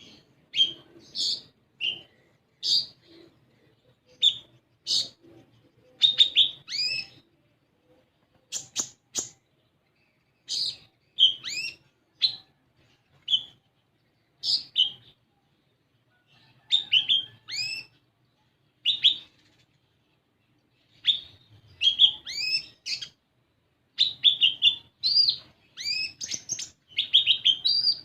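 Kolibri ninja sunbird singing: rapid, high, sharp chirps with quick pitch sweeps, delivered in short bursts with brief pauses between phrases and getting busier near the end.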